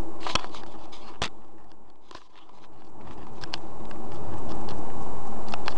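Steady car cabin and road noise that fades down about two seconds in and swells back up, with a handful of sharp clicks scattered through it.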